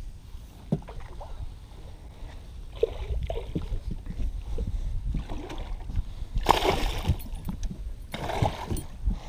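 Low rumble and knocks from handling on a boat deck, then two short splashes about six and a half and eight seconds in: a hooked smallmouth bass thrashing at the surface beside the boat.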